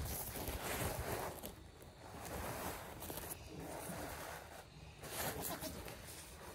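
Rustling and crinkling of a white pad being spread out and handled right against the microphone, in several bursts.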